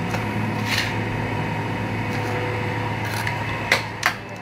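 A trowel working wet cement around a PVC pipe: a short scrape about a second in and two sharp taps near the end, over a steady low hum.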